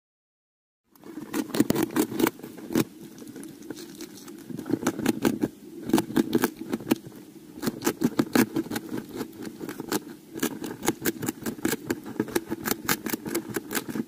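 Blind mole-rat making a dense, uneven run of sharp clicks over a low rasping scratchiness, starting about a second in.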